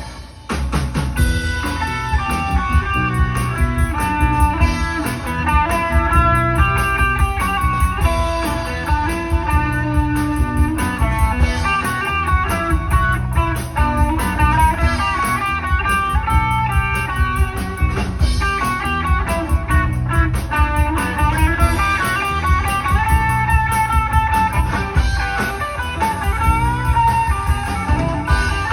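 Live rock band playing an instrumental break: electric guitar carrying the melody over bass and drums with a steady beat.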